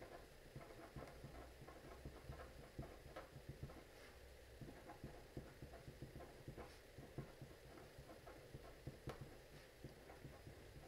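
Sharpie marker writing on paper: faint, quick, irregular squeaks and taps of the pen strokes.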